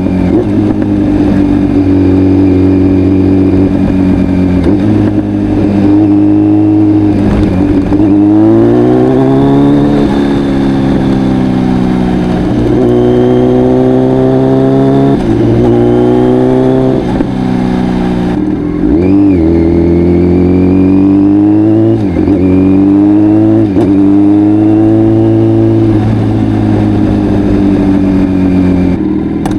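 Kawasaki Z900's inline-four engine through a full Akrapovic exhaust, running loud under way, its pitch climbing and dropping back several times as the bike accelerates and eases off.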